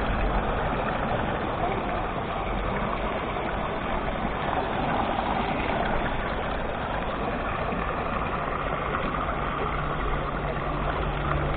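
Shallow stream rushing steadily over rocks. A low steady hum joins it near the end.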